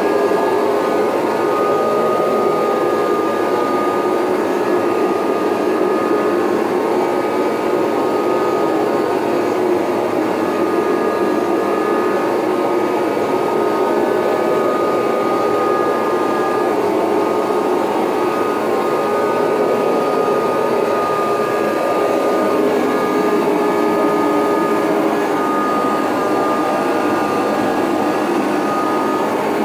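Late-1980s Kirby Heritage II upright vacuum cleaner running steadily with its Rug Renovator shampoo attachment as it is worked over carpet: a constant motor rush with a steady high whine.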